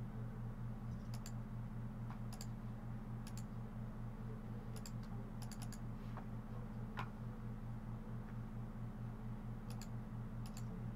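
Scattered sharp clicks from working a computer, some single and some in quick pairs, over a steady low hum.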